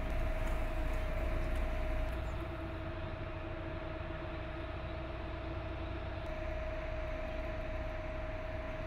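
Engine of an 8x8 wheeled armoured vehicle idling: a low rumble with a steady high whine over it. It dips a little in loudness about two seconds in.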